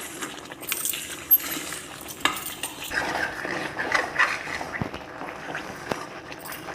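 A spoon scraping and knocking around a kadhai as a thick, sticky ginger and jaggery paste is stirred over the flame, with a light sizzle underneath. The paste is kept moving so it does not stick and burn on the bottom.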